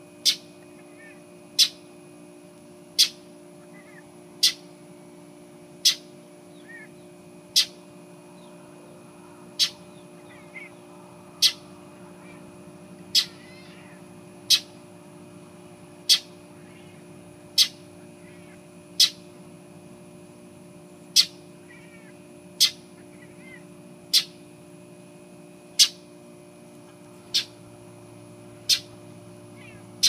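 Northern mockingbird giving a harsh, short call over and over, about one every second and a half, the scolding it uses to mob a cat.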